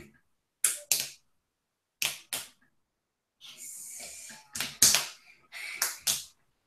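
Short, sharp knocks or clicks, mostly in quick pairs, about eight in all, with dead silence between them and a faint hiss about halfway through.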